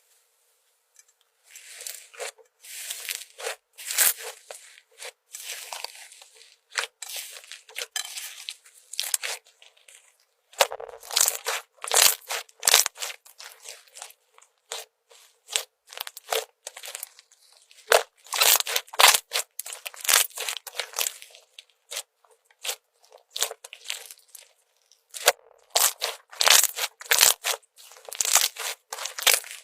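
Slime being squeezed, pressed and stretched by hand: sticky crackling, clicking and popping in irregular bunches with short pauses between them.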